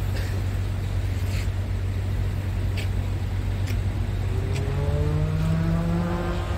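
Low steady hum of the Scania R450's diesel engine idling, with a few faint ticks. From about four seconds in, a second engine nearby revs, its pitch rising.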